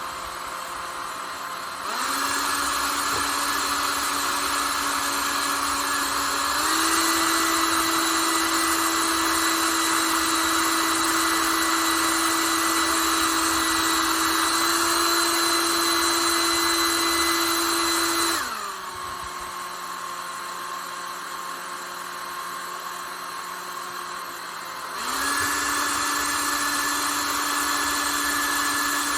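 Panasonic Nanocare EH-NA0J hair dryer running, a steady whine of its fan motor with rushing air. It is switched between airflow settings: it steps up about two seconds in and again around six seconds, drops to a lower, quieter setting around eighteen seconds, and steps back up near twenty-five seconds.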